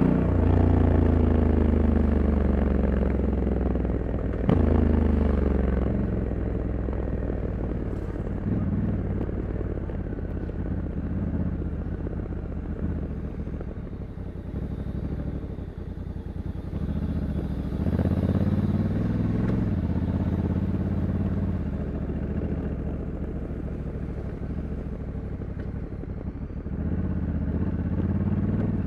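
2021 Honda Africa Twin 1100 DCT's parallel-twin engine, stock exhaust, heard while riding. It pulls strongly for the first few seconds with a sudden change about four and a half seconds in. It goes quieter as the bike eases off through the middle, then picks up again about 17 seconds in and once more near the end.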